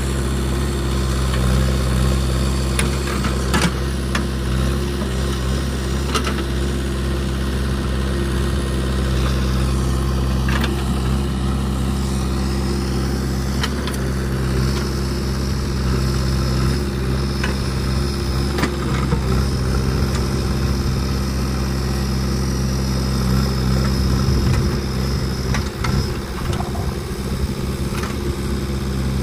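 JCB 3DX backhoe loader's diesel engine running steadily, with a few sharp knocks and clanks now and then. A high steady whine sounds over it for several seconds in the middle.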